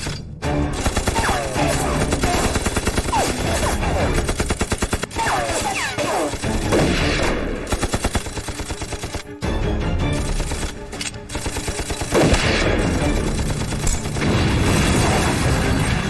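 Bursts of rapid gunfire from several guns, including quick strings of automatic fire, over a dramatic music score.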